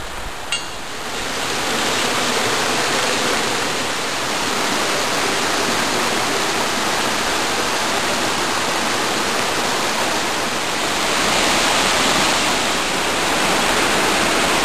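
Steady rush of water from a fast-flowing mountain creek, a continuous hiss that grows a little louder near the end.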